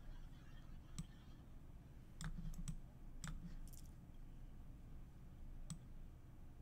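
About six faint, sharp clicks, irregularly spaced, with three in quick succession a little after two seconds in, over low room hum.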